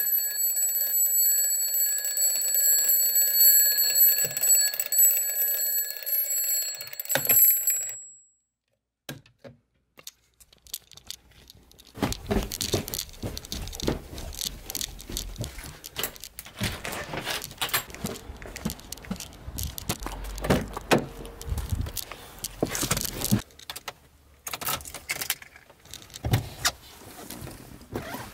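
An electronic alarm rings with several steady high tones for about seven seconds, then cuts off. After a few seconds of near silence come irregular thuds and rustles of footsteps going down carpeted stairs and moving about, fainter knocks toward the end.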